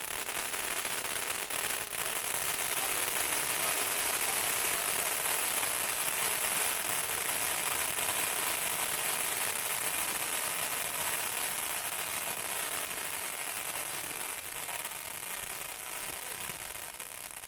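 Consumer firework fountain (World Class One Bad Granny, 500-gram) spraying with a dense, steady crackling hiss that fades slightly near the end and cuts off suddenly as it burns out.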